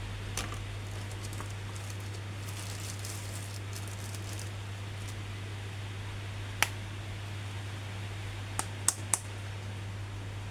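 Hands handling a plastic action-figure package. There is faint rustling, then a single sharp click past halfway and three quick clicks near the end, over a steady low hum.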